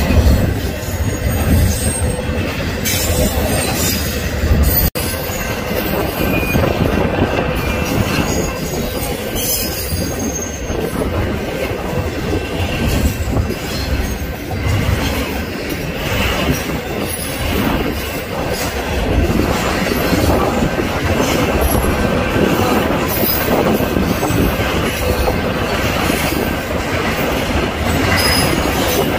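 Double-stack intermodal freight cars rolling past close by: a steady, loud rumble of steel wheels on rail with thin, steady squealing from the wheels.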